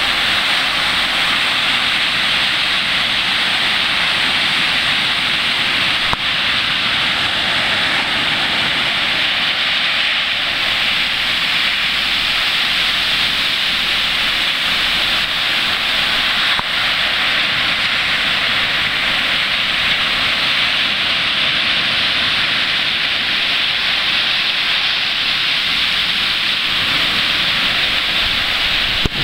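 Ocean surf breaking and washing up over sand and rocks: a steady, loud hiss of foam and churning water with no letup.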